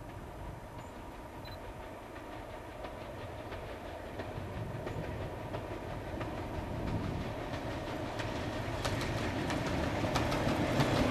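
Class 47 diesel locomotive hauling a passenger train on approach, its engine rumble growing steadily louder. In the last couple of seconds the wheels start clicking over the rail joints.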